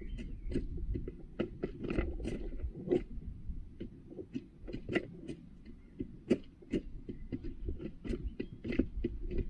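Hens pecking at a red plastic feeder pan close to the microphone: quick, irregular beak taps and clicks, several a second, over a low rumble.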